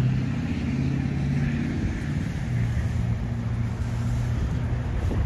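A steady, low mechanical hum, like an engine or motor running nearby.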